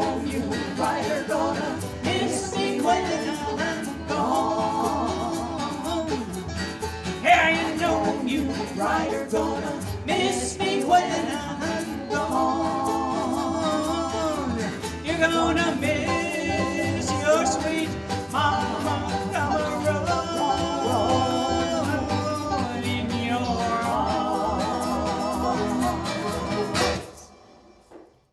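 Amateur kitchen band playing a country-bluegrass tune, wavering melody lines over a steady accompaniment with no sung words. The music cuts off abruptly near the end.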